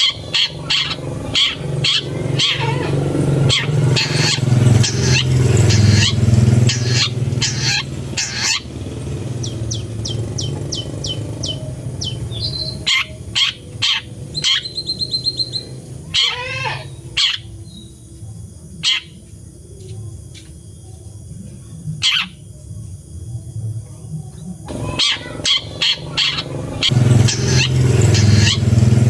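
Long-tailed shrike (cendet) singing: harsh, scratchy notes repeated about twice a second, with a quick rattling run of notes about halfway through, over a low steady rumble.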